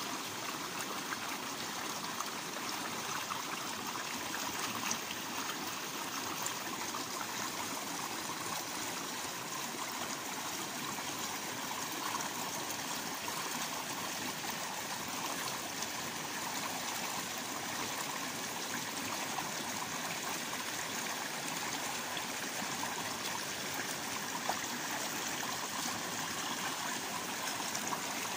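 Small waterfall: water falling and splashing with a steady, even rush.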